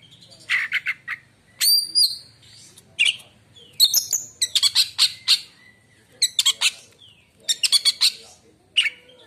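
Oriental magpie-robin (kacer) singing in short phrases that mix clear whistles with harsh, scratchy chattering notes, with brief pauses between phrases.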